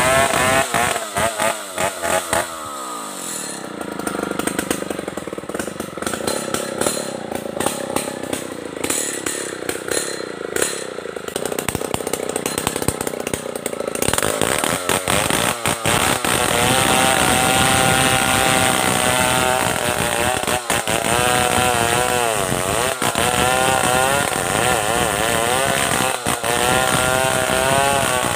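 Stihl 070 two-stroke chainsaw cutting into a big tree trunk. Its revs fall over the first few seconds. From about halfway through it runs under load, the engine pitch wavering up and down as the chain bites into the wood.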